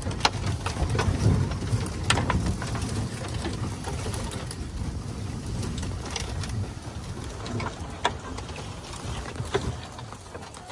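Small open-cab utility vehicle driving over rough grass: a low rumble with scattered rattles and knocks from the body over bumps, getting quieter near the end.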